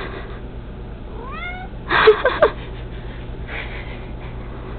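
Domestic cat meowing: a short call rising in pitch about a second in, then a louder, rougher call just after.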